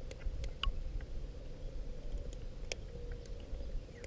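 Scattered small clicks and taps of hands working a fishing hook loose from a smallmouth bass's mouth, over a low steady rumble.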